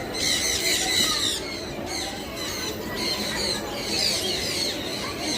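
A flock of small birds chattering, with many overlapping short, high chirps and squeaks.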